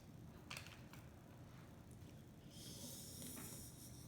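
Faint chewing on a chicken sandwich: a few soft mouth clicks, then a breath through the nose in the last second and a half.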